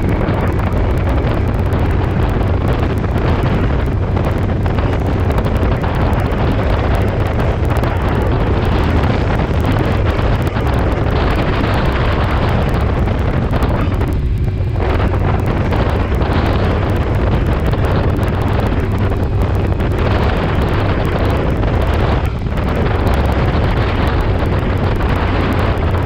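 Steady rush of wind on the microphone of a sport motorcycle moving at road speed, with engine and road noise underneath; the rush eases briefly twice, about halfway through and again later.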